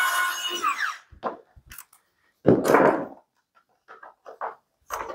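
Cordless electric screwdriver's small motor whining steadily as it drives a screw, then winding down and stopping about a second in. A brief rough noise follows, then light clicks and scrapes of a hand screwdriver turning a screw near the end.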